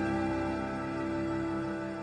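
Instrumental cello, violin and piano music, a held closing chord slowly fading out.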